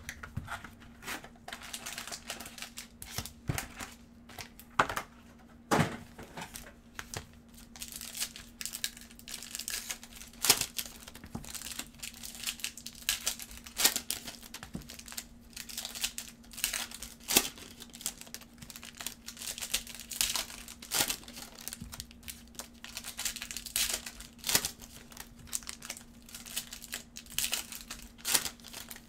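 Foil trading-card pack wrappers crinkling and tearing as gloved hands open the packs: an irregular run of sharp crackles.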